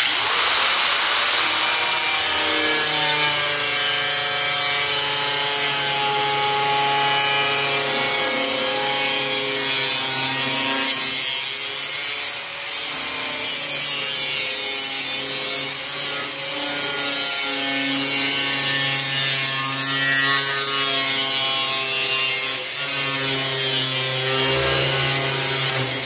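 Angle grinder with a cut-off disc running and cutting into the sheet-steel hood, a steady whine over a harsh grinding hiss, its pitch shifting slightly as the disc bears into the cut. It eases off briefly twice, about halfway through and again later on.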